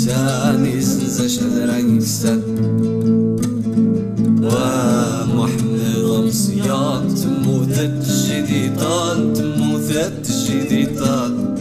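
Music from a Riffian Amazigh song: acoustic guitar plucking steady chords beneath a wavering, ornamented melody line that comes in short phrases.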